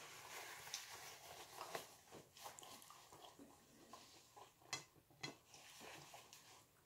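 Faint sounds of a person eating: chewing and small mouth clicks, with light crackles and rustles as a paper napkin is handled, the two sharpest about five seconds in.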